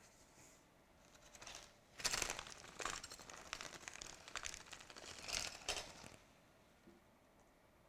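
Crinkling and rustling of plastic being handled, in irregular crackly bursts lasting about four seconds, loudest about two seconds in and again near five and a half seconds.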